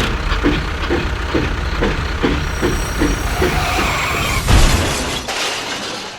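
Small motor and gearing of a homemade toy tractor-bulldozer running, with a steady rumble and a regular clack about twice a second, stopping shortly before the end.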